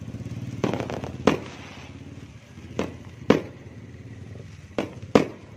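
Fireworks going off: six sharp bangs at uneven intervals, coming in three pairs, each a lighter bang followed about half a second later by a louder one.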